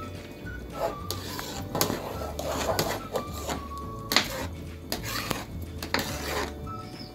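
Metal ladle scraping and knocking against the inside of a metal pressure-cooker pot while stirring milk and rice, in a series of short irregular scrapes. Background music with a steady low beat and a light melody runs underneath.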